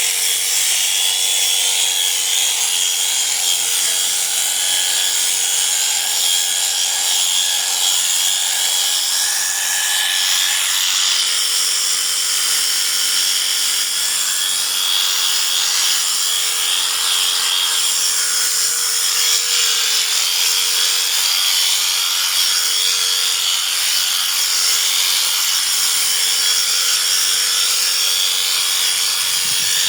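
Electric sheep shears running steadily: a constant motor hum under a dense, buzzing hiss from the cutter.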